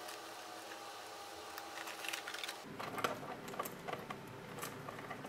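Faint handling noise of a monogram canvas bag and its gold-tone hardware being fitted together: soft rustling with a few light clicks. The background changes abruptly a little under three seconds in.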